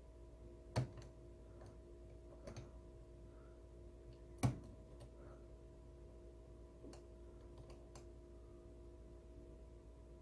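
Faint, irregular metallic clicks of a Lishi pick being worked in a Nissan 10-cut wafer ignition lock as the wafers are felt and set, the sharpest click about four and a half seconds in. A steady low hum sits underneath.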